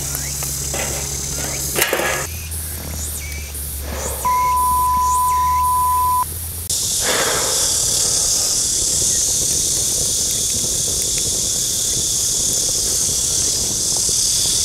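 A low hum with a few sharp crackles from a wood fire in a steel fire pit, with a pure electronic beep lasting about two seconds near the middle. From about seven seconds in, a steady high-pitched chorus of summer insects takes over.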